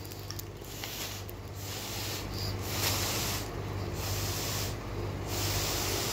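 Breath blown through a drinking straw into a foil balloon: a rushing hiss in several long blows with short pauses between them, with the foil rustling. A steady low hum runs underneath.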